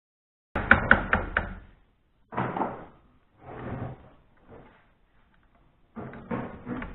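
Hammer tapping a punch to drive the roll pin out of the garage door opener's gear shaft. A quick run of about four sharp taps comes first, then several more bursts of knocking.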